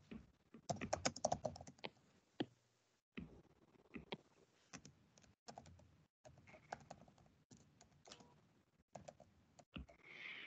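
Faint, irregular typing on a computer keyboard: quick runs of key clicks broken by short pauses, with a brief breathy hiss near the end.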